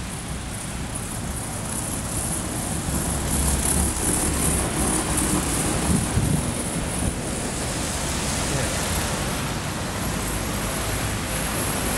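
Steady traffic noise from a snow-covered city street, swelling for a few seconds in the middle.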